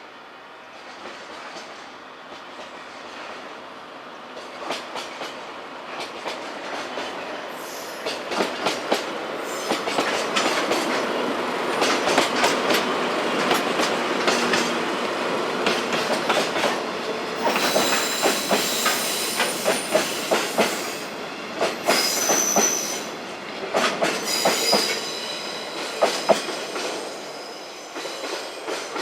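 Train wheels rolling past on a DE10 diesel-worked freight line, clicking over rail joints and growing louder toward the middle. High-pitched wheel squeal comes in during the second half.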